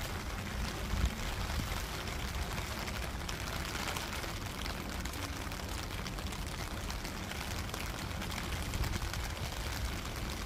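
Steady rain falling on a rooftop garden's leaves and pots, an even hiss of drops.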